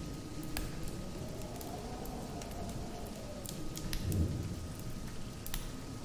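Rain falling steadily with scattered sharp drip clicks, and a low rumble of thunder about four seconds in.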